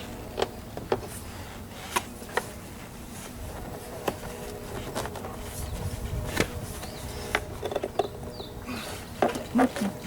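Scattered sharp clicks and taps of hand work on a car door's inner panel area, several seconds apart, with a pair near the end, over a steady buzzing hum.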